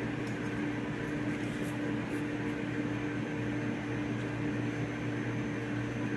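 Steady mechanical hum, like a small motor or fan running, with a few constant low tones under an even hiss.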